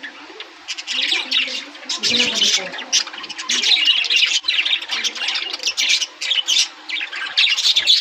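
Many budgerigars chirping and chattering at once: a dense, unbroken run of short, sharp calls.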